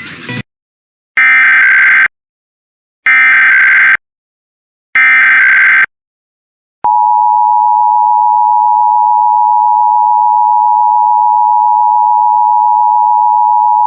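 Emergency Alert System header: three short bursts of SAME data tones about two seconds apart. About seven seconds in, the steady two-tone EAS attention signal starts.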